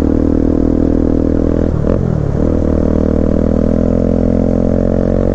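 Motorcycle engine, a Bajaj Pulsar NS200's single-cylinder, running steadily, with a brief break and dip in its note about two seconds in.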